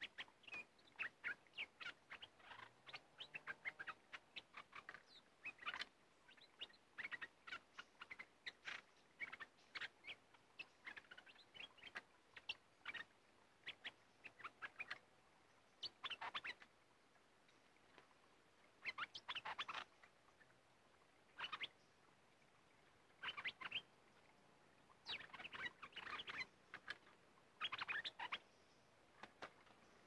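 Bulbuls calling in quick runs of short, sharp chirps. The chirps come densely for about the first fifteen seconds, then in separate bursts a second or two apart.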